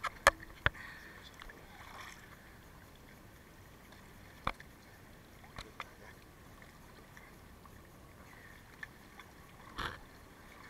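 Sea water sloshing and lapping around a camera held at the surface, with a few sharp clicks: two just after the start, one about four and a half seconds in, and a short cluster near the end.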